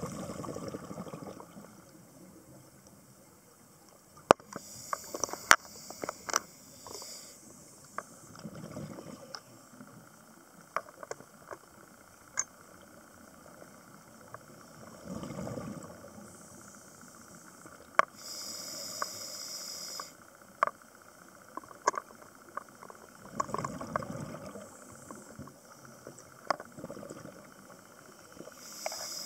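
Scuba diver breathing through a regulator underwater: three hissing inhalations of about two seconds each, with bubbly exhalations between them. Scattered sharp clicks come through as well.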